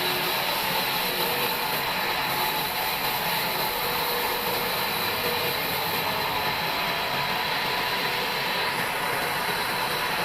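Old sawmill bandsaw running, a steady mechanical noise with a faint high whine.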